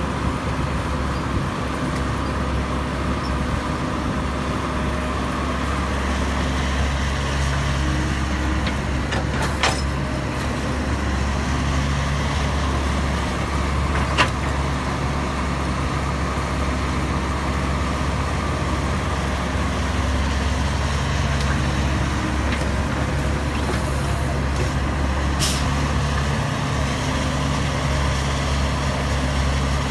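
Caterpillar E110B hydraulic excavator's diesel engine running steadily under digging load, its note rising and easing as the hydraulics work, with a few sharp knocks of the bucket and machinery.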